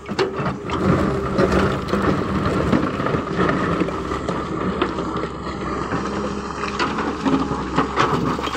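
Caterpillar hydraulic excavator's diesel engine running under load while its steel bucket scrapes through and drops rocks, with many irregular knocks and clatters of stone.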